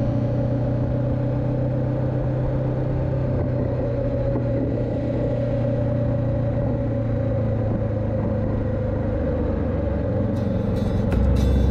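Honda CB500X's parallel-twin engine running at a steady cruising speed, heard from the rider's seat together with a steady haze of road and wind noise.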